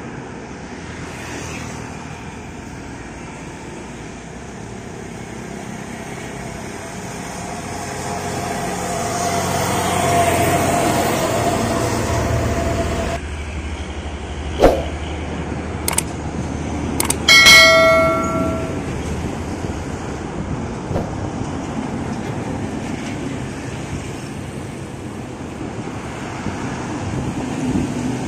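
Heavy trucks passing on a road: engine and tyre noise swelling as a truck goes by, then easing off. A little past halfway there are a few sharp clicks, then a brief horn blast of several tones together, lasting about a second.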